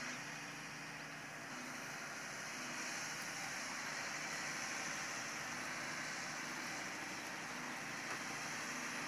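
Diesel engine of a large four-track articulated tractor (Case IH Quadtrac) running steadily as it drives, heard at a distance under a steady hiss.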